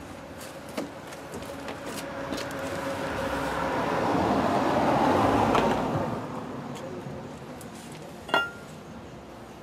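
A vehicle passing by: road noise builds over a few seconds, peaks about five seconds in, then fades away. A few light clicks and a short knock come near the end.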